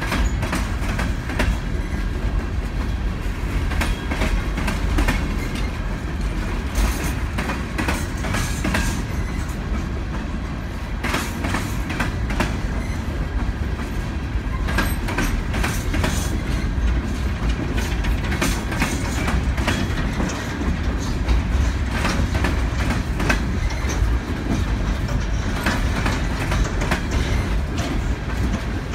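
Freight train of open-top coal hopper cars rolling past: a steady rumble of steel wheels on rail, with frequent clicks as the wheels cross rail joints.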